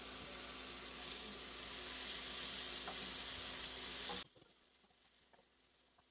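Sliced carrots, broccoli and zucchini sizzling and hissing in a hot pan as they are stirred with a spatula; the hiss cuts off abruptly about four seconds in, leaving only a few faint ticks.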